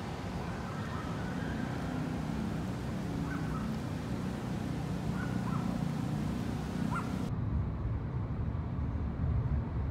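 Outdoor street ambience with a low traffic rumble and a few short bird chirps, then, about seven seconds in, a sudden change to the steady low road rumble inside a moving taxi.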